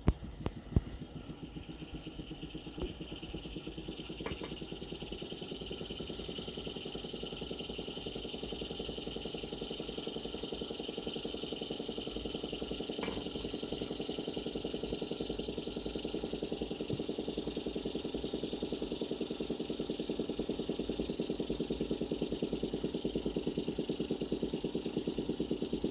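Akai GX-220D reel-to-reel tape deck's transport running after a sharp click near the start. It makes a steady mechanical whir with a fast flutter that slowly grows louder.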